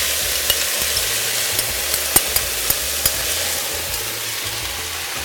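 Sauce sizzling steadily in a hot skillet of shredded cabbage as it is stirred, with a few sharp clicks of the spatula and spoon against the pan and bowl in the first few seconds.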